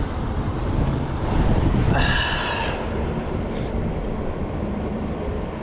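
Steady rush of shallow creek water with wind rumbling on the microphone, and a short high squeak about two seconds in.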